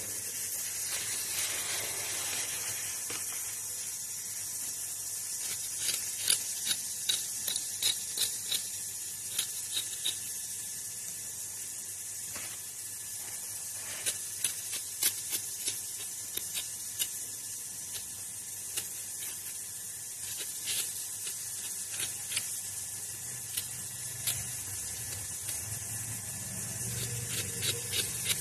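A vegetable being peeled by hand: runs of quick scraping strokes of a blade, about two a second, over a steady hiss.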